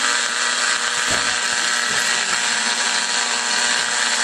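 Static from a small AA5 AC/DC AM radio's speaker: a steady hiss with faint hum tones in it, the sound of weak AM reception.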